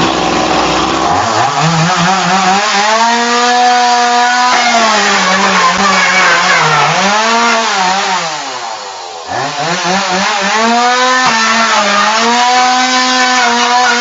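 Chainsaw engine starting up and revving high, its pitch sagging and recovering. About eight seconds in it drops nearly to idle for a second, then revs back up.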